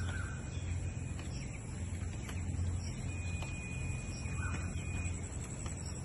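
Steady low machine hum of a poultry shed's running evaporative cooling-pad system, with faint bird calls over it and a thin high note held for about two seconds in the middle.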